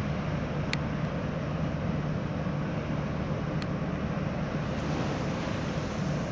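A large car ferry's engines running with a steady low drone under a broad wash of noise. Two faint brief ticks are heard, about a second in and a little past halfway.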